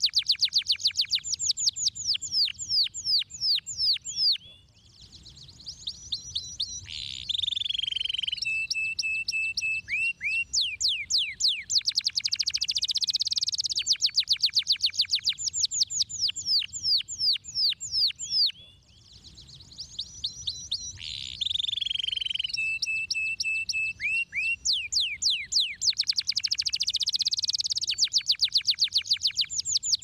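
Domestic canary singing a long, fast song of rolling trills made of quickly repeated down-sweeping notes, with runs of evenly repeated notes. The song breaks off briefly twice, and the same sequence of phrases comes round again about every fourteen seconds.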